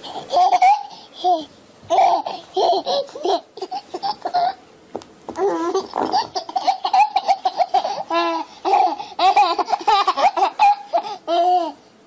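A baby laughing in many short, quick, high-pitched bursts, pausing only briefly between them.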